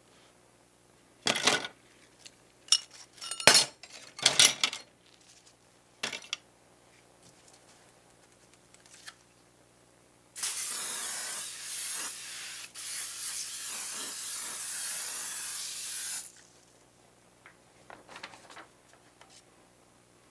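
Small metal and plastic model-car parts clatter in a plastic tub in a few sharp knocks. Then an aerosol can hisses steadily for about six seconds as it sprays foaming paint stripper over the parts to lift the old paint.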